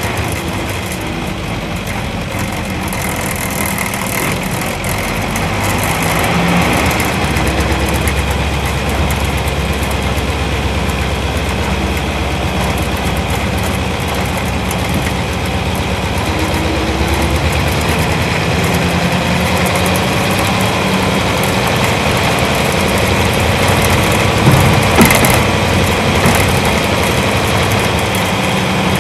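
Isuzu Cubic KC-LV380L bus's V8 diesel engine running while the bus drives, heard from inside the cabin, its note shifting as it pulls. A deeper, louder drone for several seconds about a quarter of the way in, and a few short knocks or rattles near the end.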